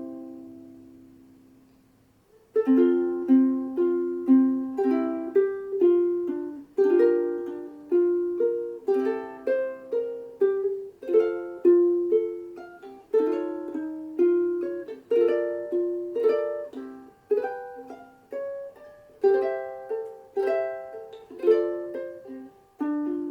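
Sumi UK-T3M soprano ukulele, all Honduras mahogany with an ebony fingerboard, being played. A chord rings out and fades for about two and a half seconds, then the playing resumes with chords struck in a steady rhythm, about two a second.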